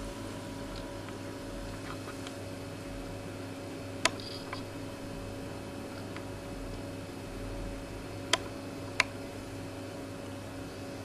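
Steady low electrical hum with three sharp clicks, one about four seconds in and two close together near the end.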